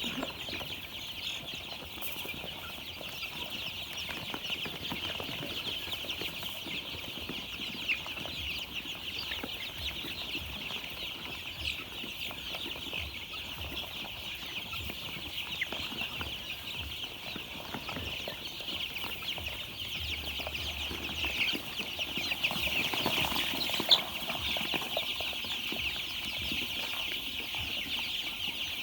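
A flock of young chicks peeping continuously, a dense chorus of many overlapping high chirps. A single sharp knock stands out near the end.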